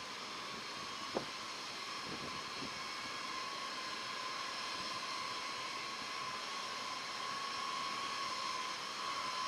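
B-52H Stratofortress's eight TF33 turbofan engines whining at taxi power: a steady high whine over a rushing hiss, slowly growing louder as the bomber rolls closer. A single sharp click about a second in.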